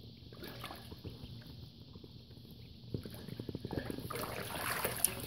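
Faint water splashing and sloshing in a shallow enamel basin as ducklings paddle and dabble, growing busier about halfway through.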